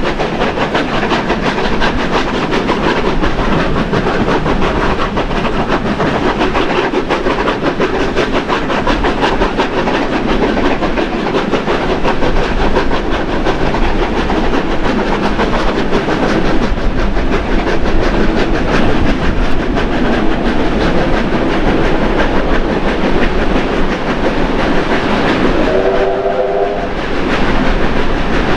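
Two steam locomotives, 3016 and 3642, double-heading a passenger train up the grade, heard from a carriage window: continuous hard-working exhaust chuffing mixed with wheel and rail clatter. Near the end a chime steam whistle gives one short blast as the train approaches a tunnel.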